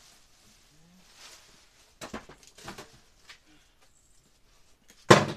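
Objects being handled and knocked about, a few short rustles and knocks, then one loud bang near the end.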